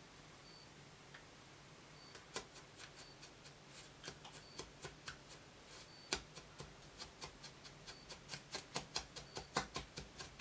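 Small plastic spoon clicking and scraping against a plastic candy-kit tray while stirring powdered dough mix with water. Quick light clicks begin about two seconds in, a few per second, and come faster and louder near the end.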